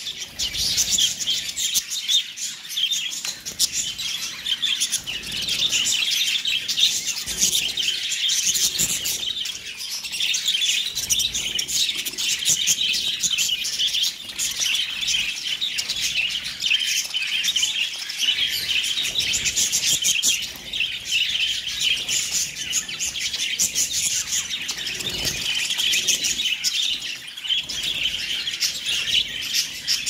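A flock of budgerigars chirping and chattering continuously, many birds calling at once.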